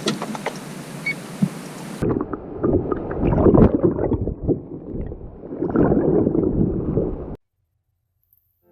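Wind buffeting the microphone on a small boat, with water gurgling and lapping against the hull; the uneven rumble stops suddenly near the end.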